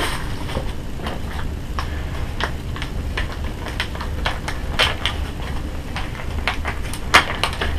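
Scattered clicks and rustles of packaging being handled in and around a cardboard box, over a steady low hum.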